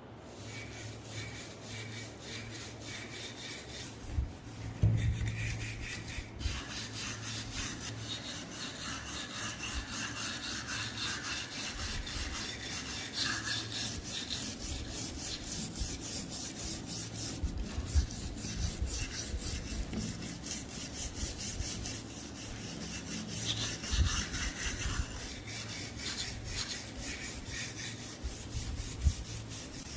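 Rapid, repeated scraping strokes of an abrasive tool worked over rusty metal, going on throughout, with a few sharper knocks between the strokes.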